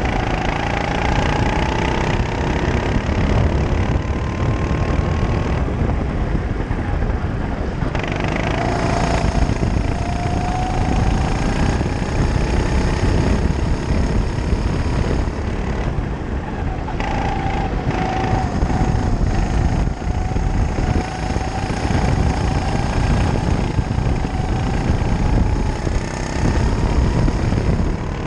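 Onboard sound of a kart engine under throttle, its pitch climbing slowly along the straights and falling back twice, around six and sixteen seconds in, under heavy wind noise.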